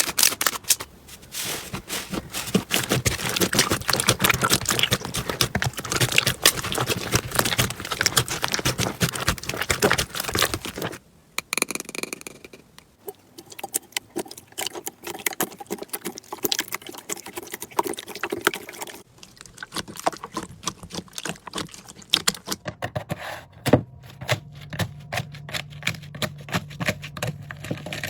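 Slime being squeezed, poked and stretched by hand, a dense run of small crackling clicks and sticky pops. The sound changes abruptly twice, as one slime clip gives way to another, and a faint low hum runs under the last few seconds.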